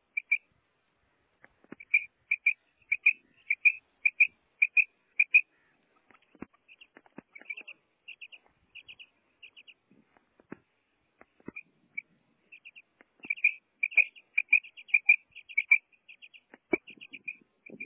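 Female common quail calling: runs of short, high chirps, about two a second, in three bouts with short pauses between.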